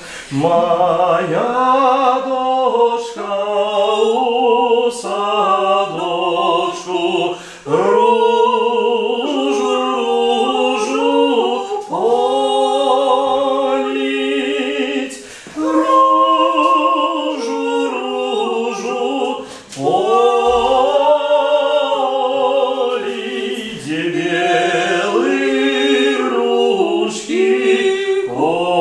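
A man and a woman singing a slow song together unaccompanied, with long held notes and brief pauses for breath.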